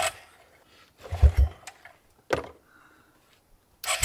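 A 34-year-old Suzuki four-wheeler's engine being pull-started after sitting all winter: yanks on the recoil starter turn it over with a few low chugs, and it doesn't catch; the engine sounds dead.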